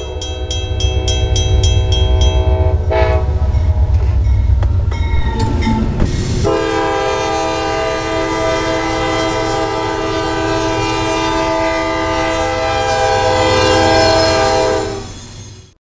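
Diesel freight locomotive's air horn sounding a multi-note chord over the heavy rumble of the train: one blast for about the first three seconds, then a long held blast from about six seconds in that cuts off abruptly near the end.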